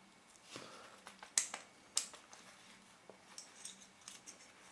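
Small sharp clicks and light ticks of metal lens parts being handled while the lens block of a Summicron-C 40 mm lens is unscrewed by hand. The two loudest clicks come about a second and a half and two seconds in.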